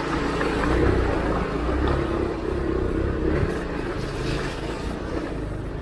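Motorcycle engine running steadily at low revs as the bike rides through a shallow water crossing, over a steady rushing noise.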